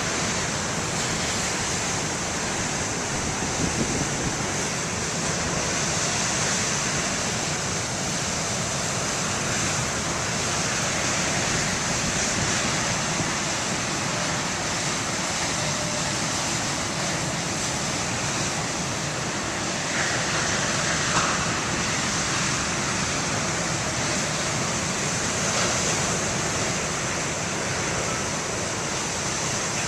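Big ocean waves breaking in heavy surf: a steady rush of water, swelling slightly with a larger wave about twenty seconds in.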